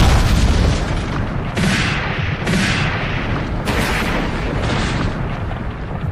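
Cartoon-style explosion sound effects: a continuous deep rumble of booms, with sharper hissing blasts breaking in several times.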